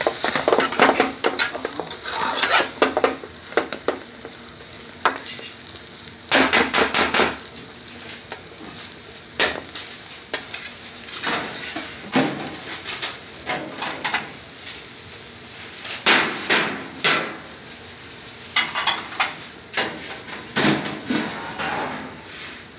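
Metal spatula scraping and knocking against a pan as a green bean and potato stir-fry is stirred, in irregular clusters of strokes with pauses between, over a low frying sizzle.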